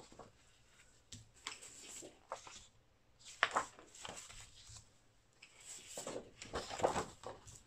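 Sheets of scrapbook paper being lifted, turned over and slid across a cutting mat: a string of short paper rustles and swishes.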